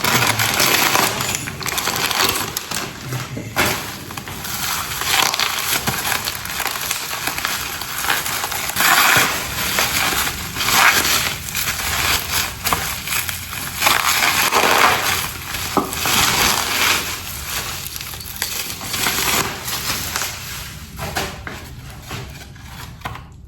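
Packing material being rustled and crumpled by hand while items are unwrapped from a box: a continuous, irregular crinkling with many small crackles, dying down near the end.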